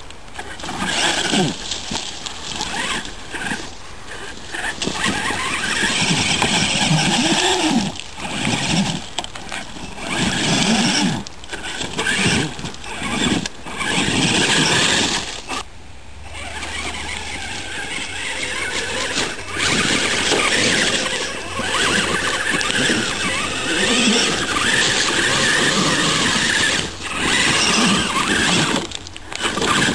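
Traxxas E-Maxx RC monster truck's twin electric motors and gearboxes whining under load as it climbs a steep rocky slope, in stop-start bursts of throttle every second or two.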